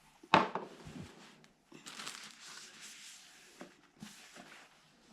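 Handling noise: a sharp knock about a third of a second in, then a second or two of crinkly rustling and a few light clicks.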